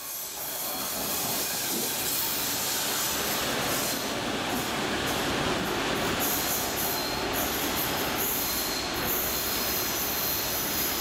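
Rail-service track maintenance vehicle running along the rails through an underground metro station: a steady rumble of wheels on track that builds over the first second and then holds.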